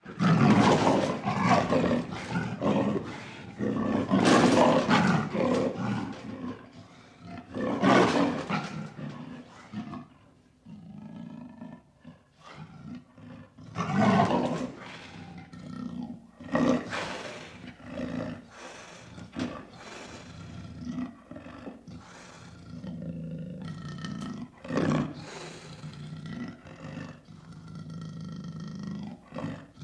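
Leopard calling: a run of loud roars through the first ten seconds, then a string of shorter, quieter calls.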